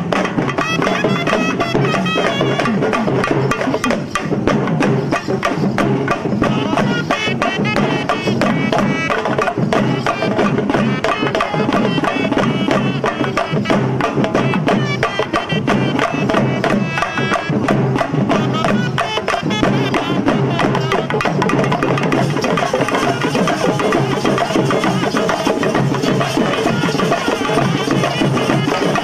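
Live Tamil folk band music: double-headed drums beaten in a fast, driving rhythm, with shrill reed pipes playing a wavering melody over them.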